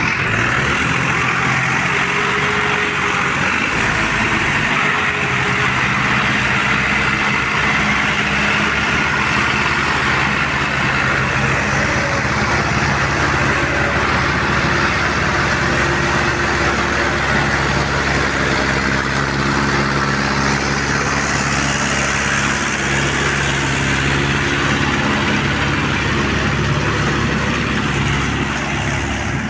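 Heavy tractor and backhoe engines running steadily, several engine notes overlapping and shifting now and then.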